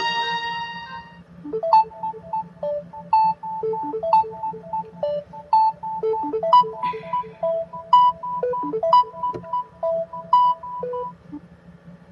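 Samsung Galaxy A50 phone playing one of its built-in ringtones: a light melody of short, clear notes, over a steady low hum. The previous tone dies away in the first second.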